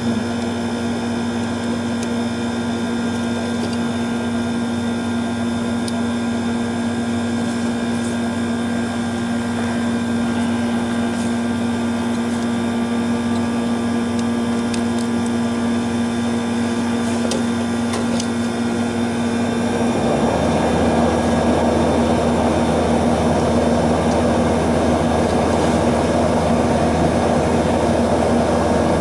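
Steady machine hum with a strong, unchanging tone; about twenty seconds in, a louder rushing layer joins it and stays. A few faint clicks of hand work on the electrical panel now and then.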